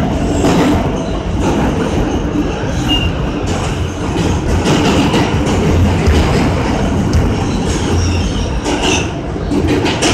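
R160 subway train running through a tunnel, heard from the front cab: a steady rumble of wheels on rail with a low hum, and a couple of brief high squeaks from the wheels.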